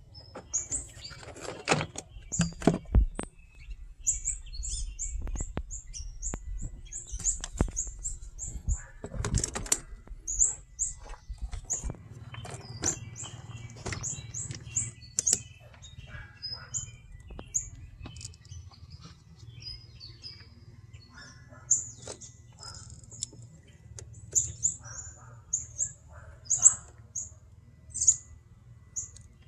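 Small birds chirping in quick, short, high notes again and again, over a low rumble with scattered clicks and knocks.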